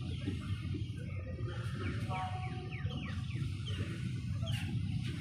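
Passenger train running slowly, a steady low rumble heard from the carriage door. A run of short falling bird chirps comes through near the middle.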